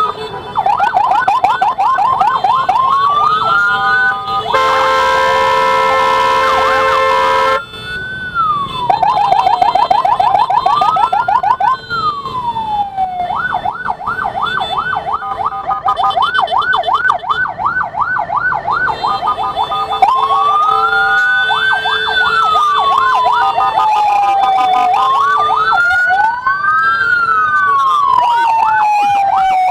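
Electronic emergency sirens of an escorted ambulance, switching between a slow rising-and-falling wail and a fast yelp, at times two patterns overlapping. About four seconds in, a steady blaring horn tone sounds for about three seconds.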